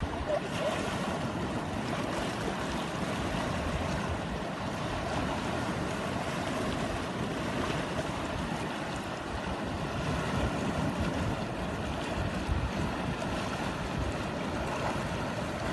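Sea waves washing against a rocky shore, a steady rushing noise, with wind rumbling on the microphone.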